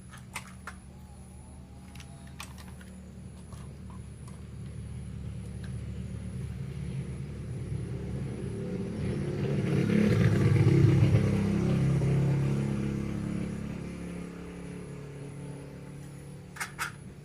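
A motor vehicle's engine that grows slowly louder, peaks about ten seconds in, then fades, like a vehicle passing by. A few sharp clicks fall near the start and near the end.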